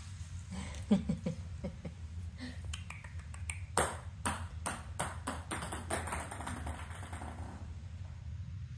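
A plastic ping-pong ball bouncing on a hardwood floor, its bounces coming closer and closer together as it settles. A few lighter taps come about a second in.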